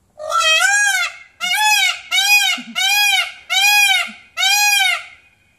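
Male Indian peafowl (peacock) calling six times in quick succession: loud, ringing wailing cries, each rising then falling in pitch, the first a little longer than the rest.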